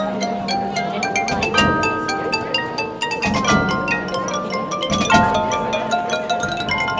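High school marching band playing its field show, with the front ensemble's mallet percussion (marimba and glockenspiel) striking quick repeated notes over held chords.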